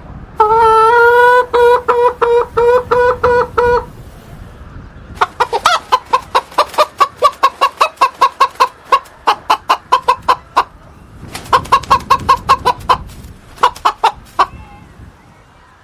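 Hen clucking: a drawn-out pulsed call in the first few seconds, then runs of quick clucks at about four a second, broken by short pauses, which stop shortly before the end.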